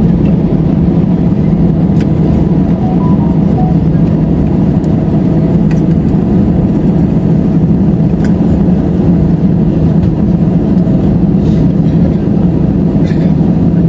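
Steady, loud low rumble inside the cabin of an AirAsia Airbus A320 on the ground after landing, with a few faint ticks.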